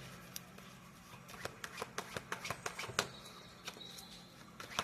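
A tarot deck being shuffled by hand: a run of faint, irregular card clicks and snaps.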